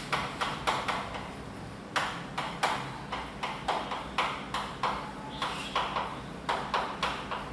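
Chalk tapping and scratching on a blackboard as letters are written by hand: irregular sharp taps, two or three a second, with a short pause about a second in.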